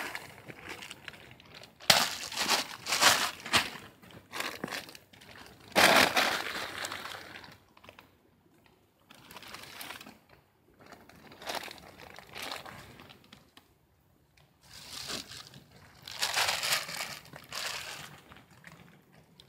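Irregular rustling and crinkling in bursts of a second or two, with quieter gaps between; the loudest come about two seconds in, about six seconds in and near the end.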